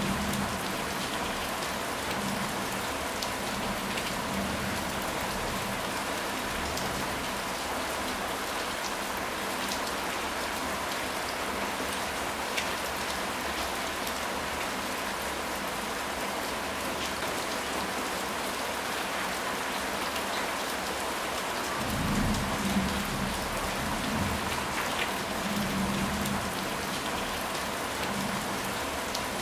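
Steady rain falling, with scattered individual drops. About three quarters of the way through, a low rumble of thunder rolls in and swells in waves.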